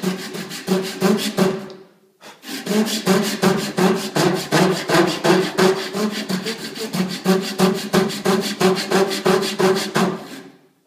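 Handsaw ripping lengthwise down a wooden dowel in quick, even strokes, about three a second. The sawing pauses briefly about two seconds in, then carries on until just before the end.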